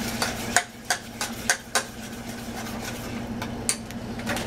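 A metal spoon or fork clinking against a cooking pot while stirring mashed potatoes, in irregular sharp clinks that bunch together in the first two seconds and again near the end. A steady low hum runs underneath.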